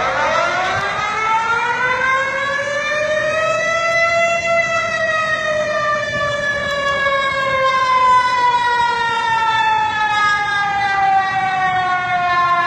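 An emergency alert siren sounds one long wail, rising in pitch over about four seconds and then slowly falling.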